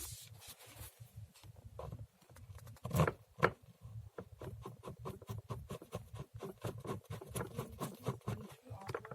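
Torx 30 bolt being driven back into a portable chiropractic table's frame with a drill and socket bit: two knocks about three seconds in, then a run of fast, even clicks, about five a second.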